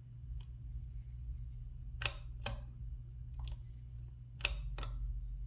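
Small sharp metal clicks of a hook pick and tension tool working the pin stack in the keyway of a Corbin steel padlock, about half a dozen separate clicks with the loudest around two seconds in and again after four seconds. A steady low hum runs beneath.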